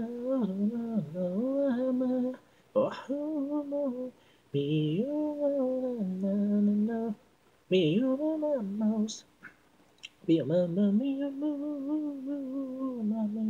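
Unaccompanied solo vocal from an isolated a cappella track of a Japanese idol pop song. It sings held, gliding phrases in four or five stretches, with short silent breaks and breaths between them.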